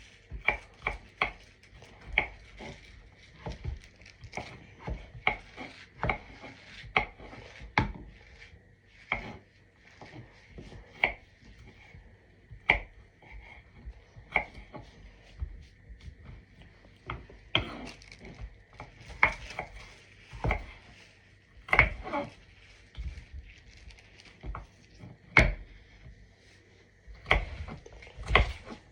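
Knife cutting potatoes into small cubes on a cutting board: irregular knocks of the blade striking the board, a few of them louder in the second half.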